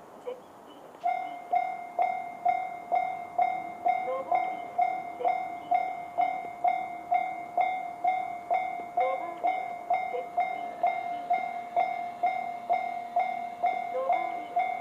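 Japanese railway level-crossing alarm in the JR standard electronic sound, switching on about a second in and then ringing a steady, evenly repeated ding about three times a second. It is the warning that a train is approaching the crossing.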